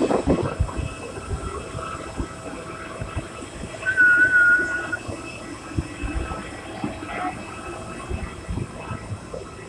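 Rumble and rattle of a moving passenger vehicle, with scattered knocks. About four seconds in, a brief high wavering tone sounds over it for about a second.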